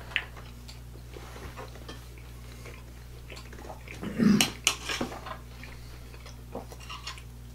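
Steel knives and forks clinking and scraping on plates as steak is cut and picked up, in scattered short clicks with a louder cluster a little past halfway, over a steady low hum.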